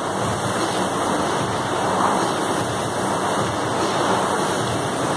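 Air rowing machine's fan flywheel whooshing steadily as the athlete rows hard, the rush swelling with each stroke about every two seconds.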